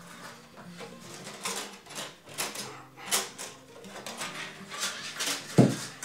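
Wire rattling and clicking inside the heater's plastic fuel tank as the tank is tilted and shaken to steer the wire toward the filler cap: irregular light clicks, with a louder knock near the end.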